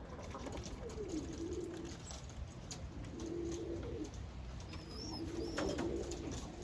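Birmingham roller pigeons cooing: three low, wavering coos a second or two apart, with two faint high chirps near the end.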